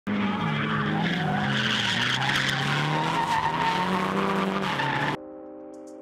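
Drift car's engine revving, its pitch sliding down and back up, over squealing tires. It cuts off abruptly about five seconds in, and a held synth chord takes over.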